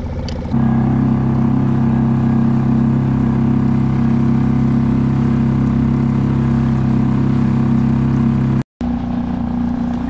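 Small 2.5 hp outboard motor on a fishing kayak running steadily under way, a constant drone. It jumps louder about half a second in and cuts out for a moment near the end.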